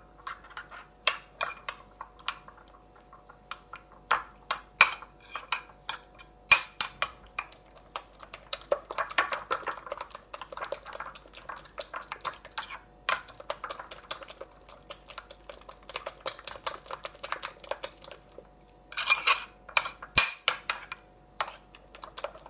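Metal spoon beating a raw egg into grated coconut in a china bowl: quick, irregular clinks and scrapes of the spoon against the bowl, with short pauses.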